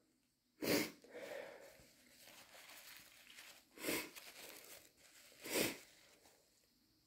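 Three short sniffs through a stuffy, runny nose, spread a few seconds apart, with faint breathing between them, between bouts of sneezing that the uploader puts down to possible hay fever.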